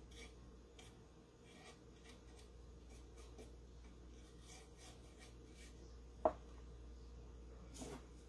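Faint scratching and rubbing of a small paintbrush on a wooden pumpkin cutout, with scattered small ticks. A single sharp tap about six seconds in and a softer knock near the end as the wooden pumpkin is laid down on a plastic cutting mat.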